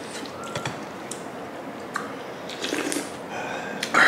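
Close-up mouth sounds of a person eating dumplings in broth: soft chewing and small wet clicks, ending in a loud, sharp breath just before the end.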